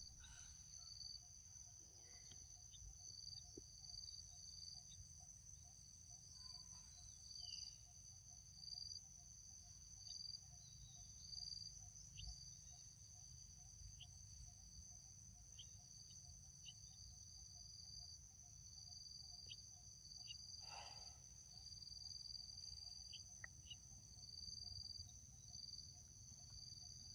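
Faint, steady chorus of forest insects: a high-pitched trill runs on unbroken, with a lower pulsing call beneath it, over a low rumble and a few soft clicks.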